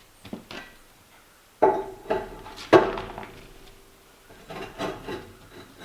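Fire bricks being fitted into the metal firebox of a Buck wood stove: three sharp knocks of brick against metal, the loudest ringing briefly, then softer knocking and scraping near the end.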